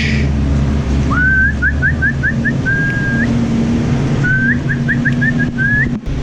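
A person whistling the same short phrase twice: a rising slide, a run of quick upward-flicking notes, then a held note. A steady low engine hum runs underneath.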